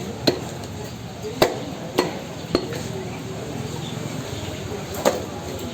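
Butcher's knife chopping meat and bone: five sharp strikes at uneven intervals over steady background noise.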